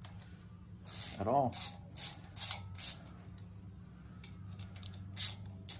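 Hand ratchet clicking in short bursts as a 13 mm socket backs off the loose rocker-arm nuts on a VW Beetle cylinder head; the nuts were not tight at all. There are several bursts in the first three seconds and one more near the end, over a steady low hum.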